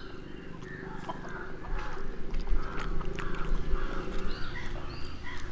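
Birds calling repeatedly: a run of short calls, with a few higher chirps in the second half.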